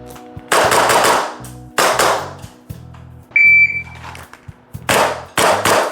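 Umarex Glock 19X gas blowback airsoft pistol firing in quick strings, each shot a sharp crack trailed by a hiss of gas: two or three shots in the first two seconds, a single high beep about three and a half seconds in, then three rapid shots near the end.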